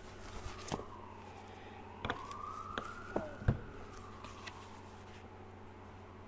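A faint siren wailing slowly down and up in pitch, heard through the room. Over it come light knocks and paper rustles as sheets are handled at a desk, the sharpest knock about three and a half seconds in.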